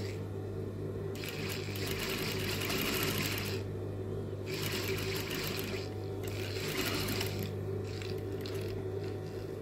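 Industrial lockstitch sewing machine stitching a seam along a fabric fold, its motor humming steadily. The stitching stops and restarts a couple of times while the motor keeps running.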